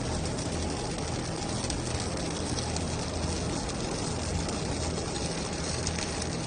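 MIG welding arc from a robot-held torch, a steady crackling hiss with a low hum under it.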